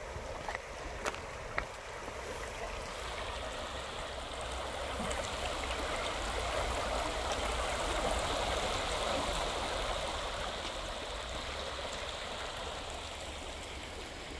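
Shallow river water rushing and rippling over stones, growing louder toward the middle and easing off near the end, with a few sharp clicks in the first two seconds.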